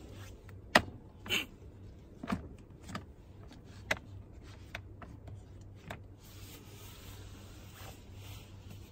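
A handful of light knocks and clicks from things being handled and set down on a tabletop, the loudest about a second in, then fewer and fainter, over a faint steady low hum.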